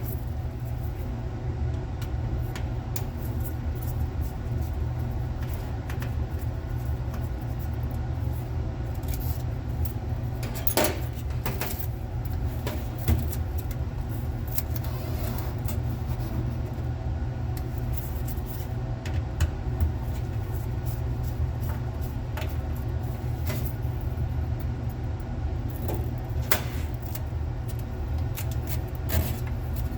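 Steady low machine hum, with scattered light clicks and taps of small screwdrivers and screws as the cover screws of a hard drive are worked loose.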